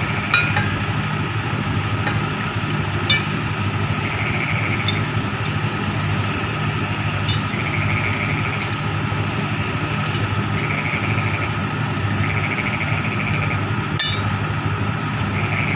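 Heavy diesel engine idling steadily, with a few short metal clinks from work on the steel crane parts, the loudest about fourteen seconds in.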